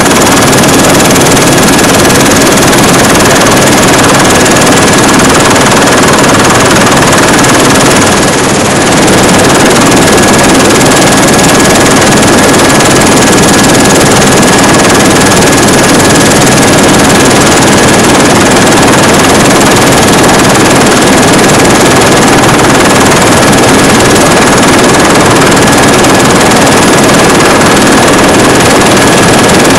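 Helicopter in flight, heard on board: loud, steady engine and rotor noise with a constant high whine.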